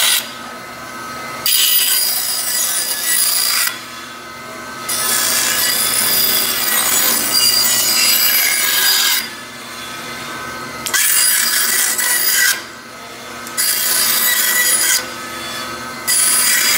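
Bandsaw with a narrow blade cutting a small walnut block in a series of cuts. Loud rasping stretches of a second to four seconds, while the blade is in the wood, alternate with quieter gaps of about a second, where only the running saw is heard as the piece is backed out and turned.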